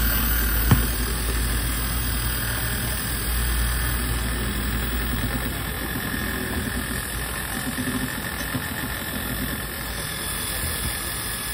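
A small motor running steadily at high speed, with one sharp click about a second in.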